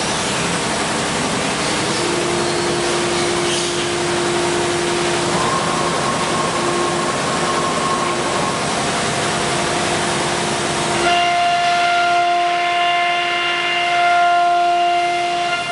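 ATC CNC router running: its spindle gives a steady whine over a loud, even hiss. About eleven seconds in, the hiss thins and the whine changes to a different set of steady tones as the spindle head moves down to the board.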